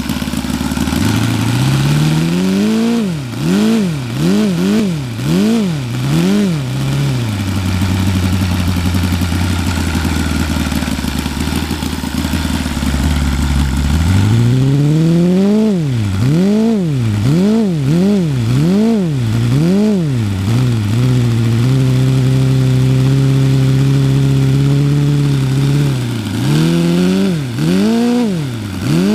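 Saito FA-90R3 three-cylinder four-stroke radial model engine running on E85 pump fuel, turning its propeller. It is revved in quick repeated throttle blips, each a rise and fall in pitch. Between the blips it drops to a low steady idle, which the owner says is too rich and needs leaning, and it is held for a few seconds at a steady higher speed before more blips near the end.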